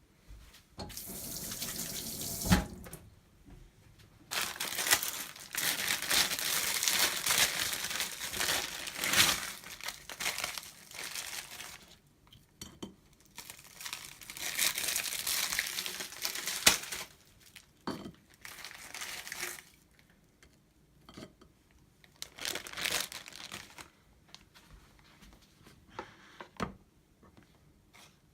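Water running from a tap in several stretches of one to a few seconds, stopping and starting, with a few sharp knocks in between.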